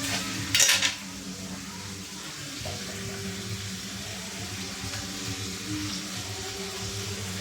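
A metal spatula or spoon clatters against the pan once, loudly, about half a second in. Food then fries in the pan with a steady sizzle while it is stirred.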